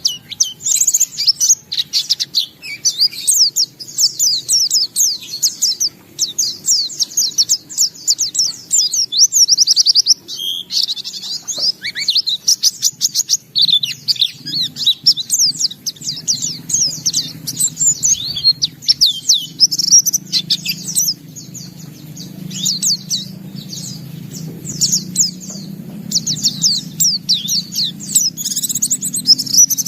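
White-eye (pleci) singing nonstop in fast, high, twittering phrases: the bird is in full song and runs through its repertoire of learned song material. A faint low hum sits under it from about halfway.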